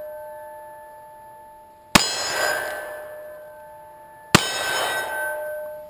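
Double-action revolver fired twice, about two and a half seconds apart, the first shot about two seconds in. Each shot is followed by a long, fading metallic ringing.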